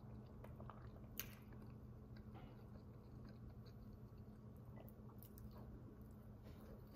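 A person chewing a soft cheeseburger slider with the mouth closed: faint, wet smacking and small clicks, with one sharper click about a second in, over a low steady hum.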